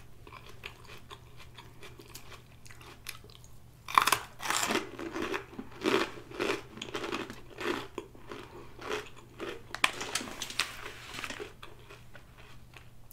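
A person biting into and chewing crunchy food close to the microphone. After a quiet start, a sharp bite about four seconds in, then a crunch about every half second until near the end.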